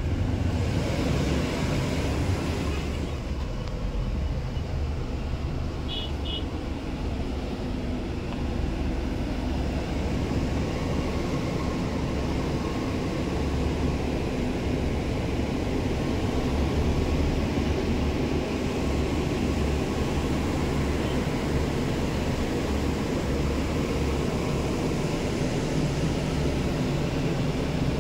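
Steady low rumble of an Ashok Leyland BS VI diesel sleeper coach, heard from inside its passenger cabin. Two short high beeps sound close together about six seconds in.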